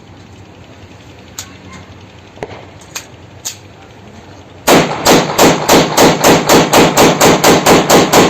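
Glock 19 9mm pistol: a few light clicks of handling, then about a second and a half before the midpoint ends it opens up in rapid fire, a loud, even string of shots about five a second that runs on to the end, emptying a 17-round magazine.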